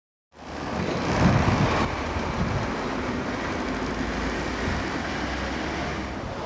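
Road traffic on a busy multi-lane street: a steady wash of passing vehicles, fading in just after the start, with a louder swell about a second in.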